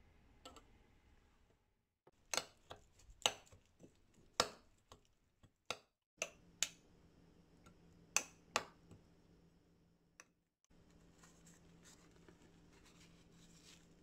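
Metal spoon clinking and tapping against a small ceramic bowl while stirring a sauce: a run of sharp, irregular clicks for several seconds, then only a faint steady hum.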